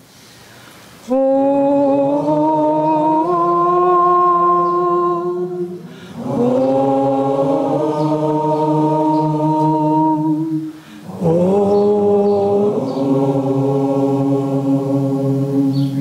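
A woman's voice chanting three long held notes in a row, each starting with a short upward slide and then sustained, with a steady lower drone sounding beneath.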